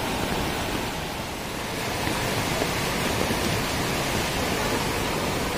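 Torrent of muddy floodwater rushing, a steady, even rush of water.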